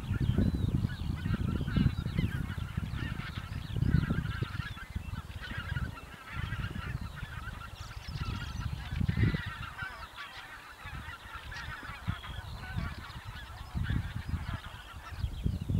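A flock of geese in flight, many birds honking at once in a dense, overlapping chorus, over a low gusty rumble that comes and goes and is strongest near the start.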